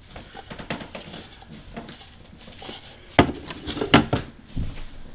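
Irregular clicks and knocks of a hard plastic dual camcorder battery charger being handled and turned over, with two louder knocks about three and four seconds in.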